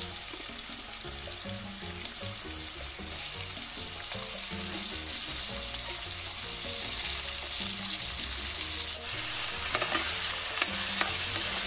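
Chopped onions and freshly added tomatoes frying in oil in a kadhai, a steady sizzle, with a steel spoon stirring and scraping against the pan and a few sharper scrapes near the end.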